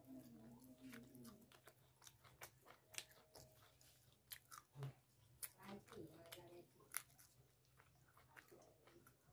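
A person chewing and biting: meat being bitten off a chicken leg in curry and eaten with rice, with quiet, irregular wet smacks and mouth clicks.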